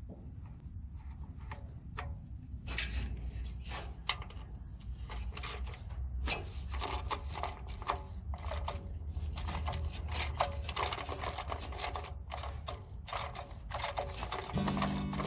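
Hand ratchet wrench clicking in quick irregular runs, backing bolts out of the engine block of a 1958 Plymouth 318 V8.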